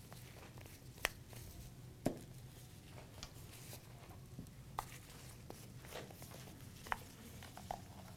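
Faint room tone with a handful of sharp clicks and taps, about five spread through, from small spice jars and their lids being opened, picked up and set down on the counter.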